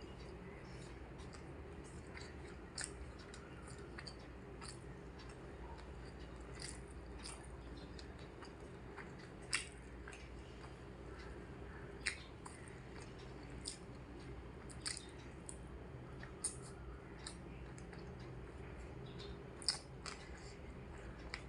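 A person chewing and eating a rice-and-curry meal, with about half a dozen sharp clicks and crunches scattered through, over a steady low hum.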